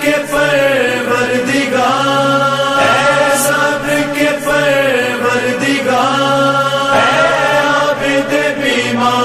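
A man's voice chanting a Muharram mourning lament (nauha) over loudspeakers, in long held notes with slides in pitch, the phrase starting over about every four seconds.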